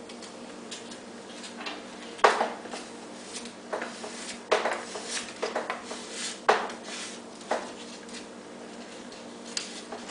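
Handling noise of hobby work at a table: a few sharp knocks and clatters as small parts and tools are picked up and set down on a plastic cutting board, the loudest about two seconds in, over a faint steady hum.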